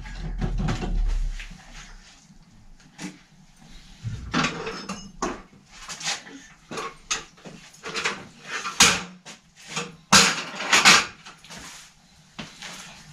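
Irregular knocks, clicks and clatter of hands and tools working on a bicycle in a repair stand.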